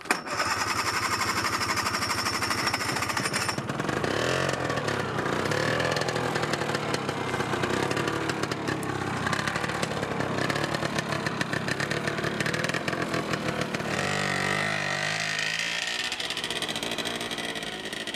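Small engine of a light three-wheeled utility truck starting up abruptly and running as it pulls away, its pitch rising and falling several times with the throttle.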